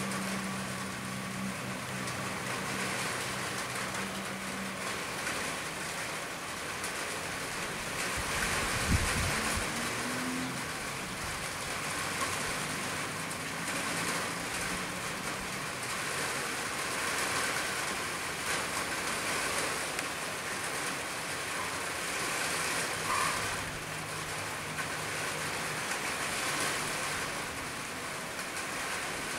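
Steady hiss of rain falling on roofs and pavement, with a low engine hum at times and a vehicle passing about nine seconds in.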